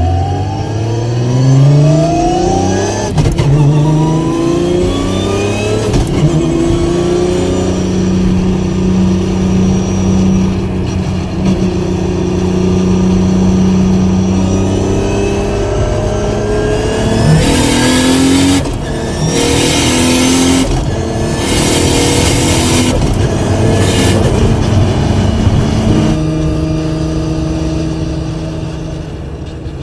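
Nissan R34 GT-R's RB26 straight-six, built as a 2.8-litre stroker, accelerating hard through quick shifts of its sequential gearbox, the pitch climbing and dropping back with each shift in the first few seconds before holding a steady note. Partway through come several loud hissing rushes of about a second each, and near the end the engine settles to a lower steady note.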